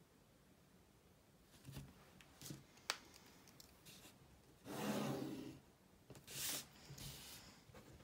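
Pen and plastic plotting triangle handled on a paper nautical chart while a bearing line of position is drawn: a few soft knocks and a sharp click, then a rubbing stroke about five seconds in and a shorter one a little later.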